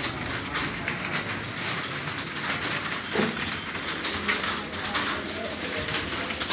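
Computer keyboard keys clicking in rapid, uneven typing.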